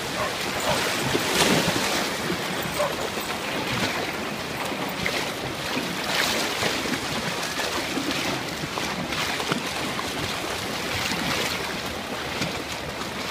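Shallow ocean surf washing and sloshing close to the microphone, with brief surges of splashing as a small dog swims through it, and some wind on the microphone.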